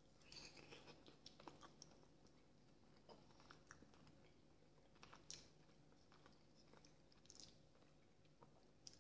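Faint, close-up chewing of soft boiled potato vareniki with sour cream, with scattered small wet smacks and clicks over a low steady hum.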